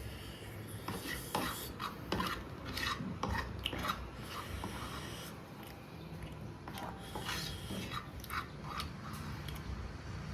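Eating a bowl of spicy noodles: utensils scraping, stirring and clicking against the bowl in a string of irregular short, scratchy strokes.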